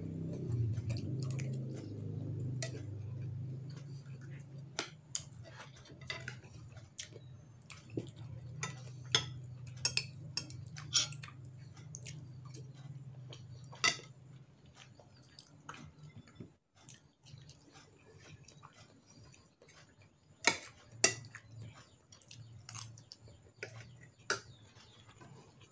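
A metal spoon and fork clink and scrape against a plate and bowl, with quiet chewing, during a meal of noodles and rice. The sharp clicks are scattered and irregular, loudest about two-thirds of the way through. A low steady hum underneath stops partway through.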